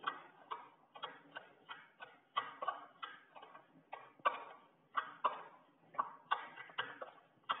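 Metal spoon clinking and scraping against a bowl while stirring a thick semolina and yogurt mixture, an irregular run of about three clicks a second.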